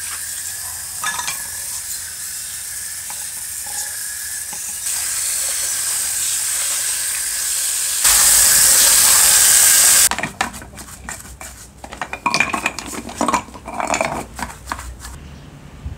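A jet of water hisses steadily as it sprays onto disassembled aluminum saw housing parts, growing louder in steps and loudest around eight to ten seconds in. It then stops abruptly, and short, irregular scrubbing and scraping strokes follow as a part is worked over by hand in foamy water.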